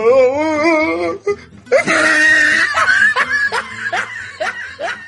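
Laughter over music: a wavering, pitched laugh in the first second, then a run of quick rising laughs repeating a few times a second.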